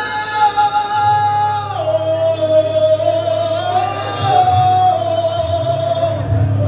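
Live hard rock band on electric guitar, bass and drums, with a male lead singer holding long notes that step down in pitch about two seconds in; the bass comes in about a second in.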